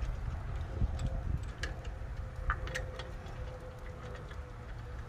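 Scattered light metallic clicks and taps as wheel bolts are turned in by hand through an alloy wheel onto a wheel spacer, over a low rumble.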